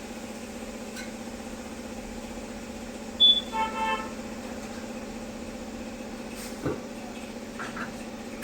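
Short vehicle horn toot about three seconds in, over a steady low mechanical hum.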